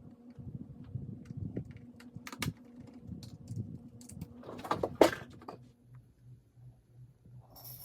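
Scattered clicks and knocks of an Apple A1048 keyboard and its parts being handled, with a louder clattering burst about five seconds in.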